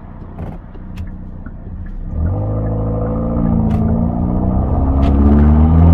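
Hyundai Elantra N's turbocharged four-cylinder engine and exhaust, running low at first, then revving louder from about two seconds in and slowly climbing. Three sharp cracks from the exhaust are spread through it.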